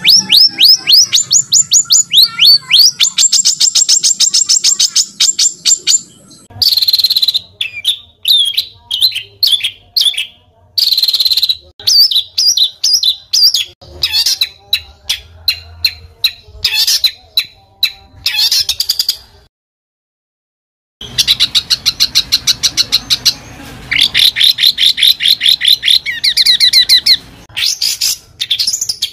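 Songbird singing rough, rapid-fire 'tembakan' phrases: fast runs of repeated high notes, then a stretch of short separate bursts. The song stops for about a second and a half past the middle, then resumes with more fast runs.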